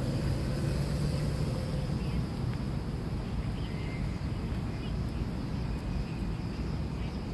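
Outdoor park ambience: a steady low rumble with a thin, steady high-pitched drone over it and a few faint short chirps.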